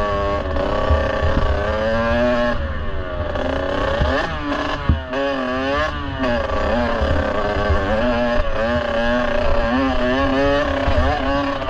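Kawasaki KX65's small two-stroke single-cylinder engine under way, its pitch climbing and dropping again and again as the rider works the throttle, heard from the rider's chest-mounted camera.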